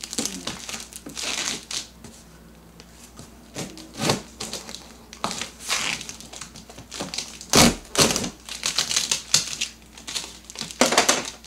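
Hand shears cutting through packing tape and cardboard on a heavily taped box: irregular snips, clicks and crinkling of tape, with the loudest crunch a little past the middle.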